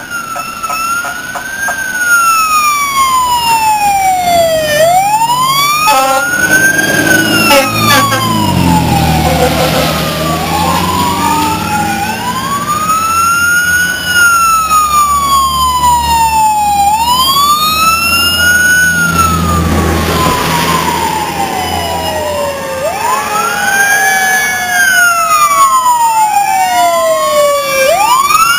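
Fire apparatus sirens wailing, each sweep rising and then falling slowly, with a second siren overlapping near the end. A heavy vehicle's low engine rumble runs beneath through the middle.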